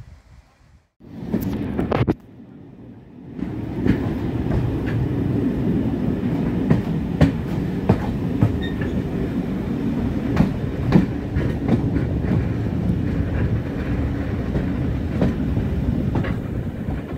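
Heritage steam train's carriages running along the line, heard from an open carriage window: a steady loud rumble of wheels on rail with irregular sharp clicks. A brief loud rush comes about a second in, and the noise steps up about three seconds in.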